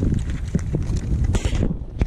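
Wind rumbling on the microphone, with irregular knocks and clatter of handling in a kayak.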